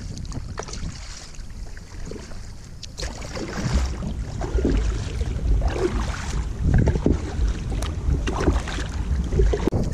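Double-bladed kayak paddle strokes splashing and dripping in lake water beside the hull, with a low wind rumble on the microphone that grows louder about three seconds in.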